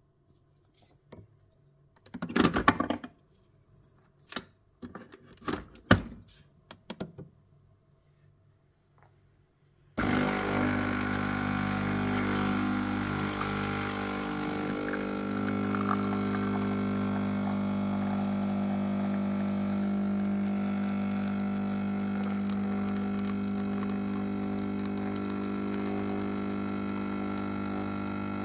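A few clicks and knocks, then about ten seconds in a Nespresso capsule coffee machine's pump starts suddenly and runs with a loud, steady hum as it brews coffee into a glass.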